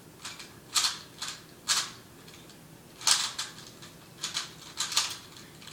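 3x3 Rubik's cube being turned by hand: irregular plastic clacks as the layers snap round, several in quick pairs, with short pauses between moves.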